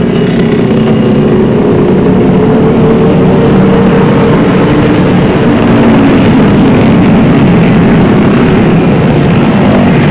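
A large group of motorcycles and scooters riding together, their engines making one loud, steady, overlapping drone.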